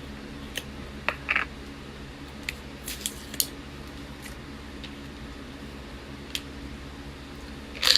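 A supplement container being opened by hand: scattered short clicks and crinkling rustles, with a louder cluster of handling noise near the end, over a steady low hum.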